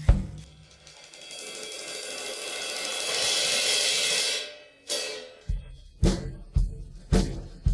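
Layered percussion: a cymbal swell builds for about three seconds and cuts off sharply. After a single hit, a steady beat of low drum strikes follows at about two a second.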